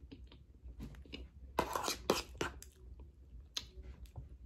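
Close-up mouth sounds of a person chewing a soft banana-and-whipped-cream dessert off a spoon: scattered wet clicks and smacks. A louder noisy burst comes from about a second and a half to two and a half seconds in.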